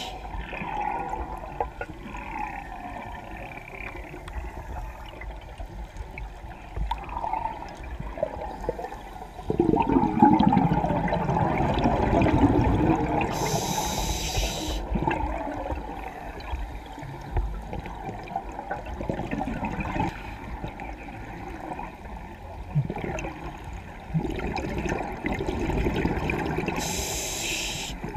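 Scuba diver breathing through a regulator underwater: long rushes of exhaled bubbles, with a short hissing inhale about halfway through and again near the end.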